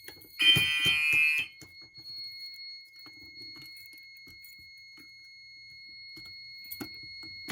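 A fire alarm horn sounds one short blast of about a second, as the audible walk test signals the pulled station, over a steady high-pitched tone from the alarm panel in trouble. Small clicks and knocks follow as the pull station is handled for reset.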